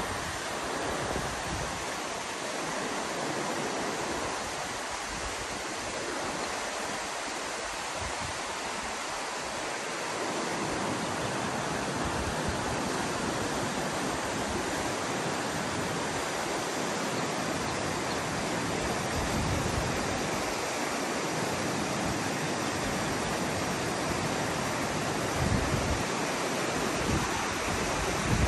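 A rocky foothill creek rushing over boulders and small rapids close by, a steady, even rush of water.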